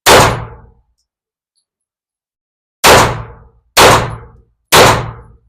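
Four pistol shots from a Springfield Armory Echelon compact: one right at the start, then after a pause of nearly three seconds three more about a second apart, each with a short ringing tail.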